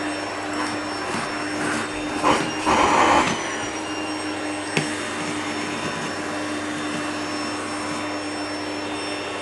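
Vacuum cleaner running steadily with a constant motor whine, briefly louder twice, about two and three seconds in, and a single click near five seconds in.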